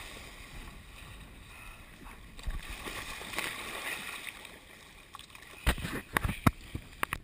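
Seawater splashing and sloshing around a fallen windsurfer and his board, heard close to a GoPro at the water's surface, with a few sharp splashes near the end.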